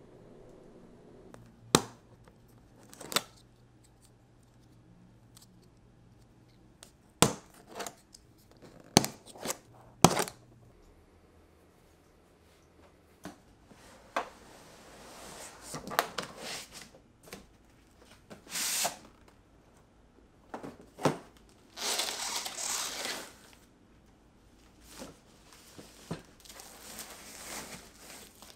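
Unboxing handling noise: several sharp knocks and clunks in the first ten seconds, then stretches of rustling and tearing of packaging.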